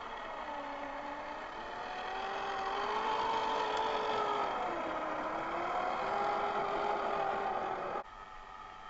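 Electric motor and gear drive of a radio-controlled RC4WD Gelande II Land Rover Defender 90 whining as it crawls, the pitch rising and falling with the throttle and getting louder as the truck comes close. The whine cuts off abruptly about eight seconds in.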